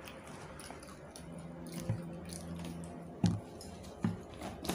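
Quiet chewing and squishy mouth sounds, then a few sharp clicks in the second half as a plastic water bottle is handled and its cap opened.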